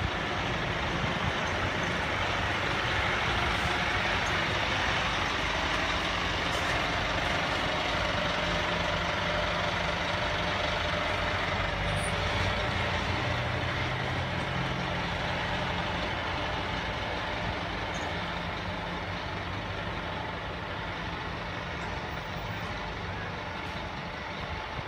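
Scania horsebox truck's diesel engine running as the truck rolls slowly past, exhausting through twin side pipes; the steady engine note eases off gradually over the second half as it moves away.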